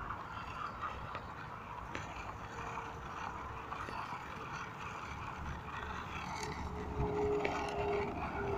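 A 50-metre open-reel tape measure paying out as it is walked away from its anchor, the reel turning and the tape rubbing, with a faint steady tone coming in near the end.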